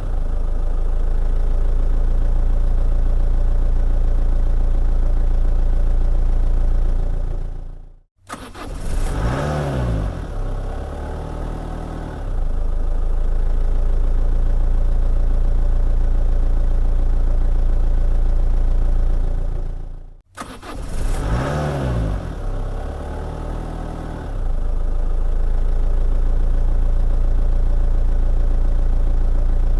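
Car engine starting, rising and falling in pitch briefly, then settling to a steady idle. The sound cuts off suddenly twice, about 8 and 20 seconds in, and the engine starts again each time.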